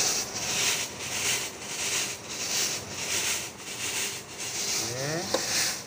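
Sanitizer fogging machine running, a hiss that swells and fades roughly every half second.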